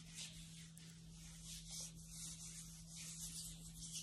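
Faint, soft rubbing of hands against each other and the arm, working a thick homemade body butter into the skin, over a steady low hum.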